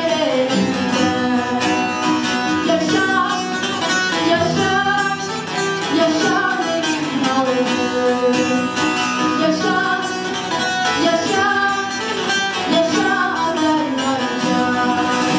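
A female solo voice singing a song, accompanied by a plucked bağlama and an acoustic guitar.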